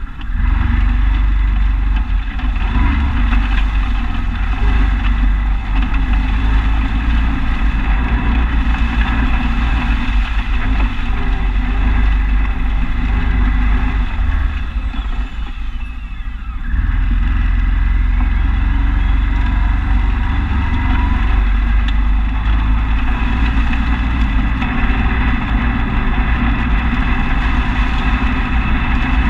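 A vehicle's engine running steadily while riding over rough pasture. It drops off for about two seconds around the middle, then picks back up.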